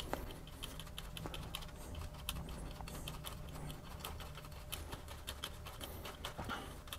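LEGO Technic plastic gears and axles clicking as the trailer's hand crank is turned to raise its top deck; a faint, irregular run of small clicks, a few per second.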